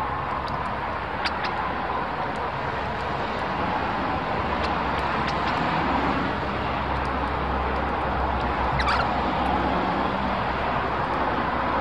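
Steady outdoor background noise with a low rumble that swells through the middle, and a few brief bird calls; the clearest, about nine seconds in, falls in pitch.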